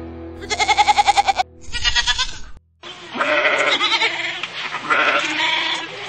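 Goats bleating: a quavering bleat, a shorter bleat, then after a brief break a longer, drawn-out bleat. Steady background music runs under the first bleat.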